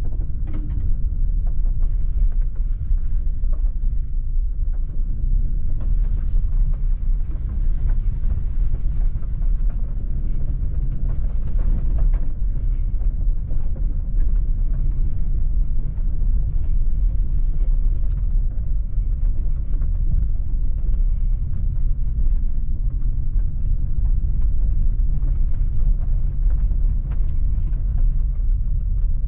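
Jeep Avenger with the 1.2 turbo petrol engine on the move: a steady low rumble of engine and road noise, with a couple of faint clicks about six and twelve seconds in.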